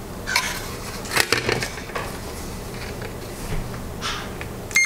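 Light clicks and clatter of multimeter test probes and their leads being handled and set on the circuit board's pads. Near the end the meter's continuity beeper starts, a steady high tone, as the probes find a connection between two pads.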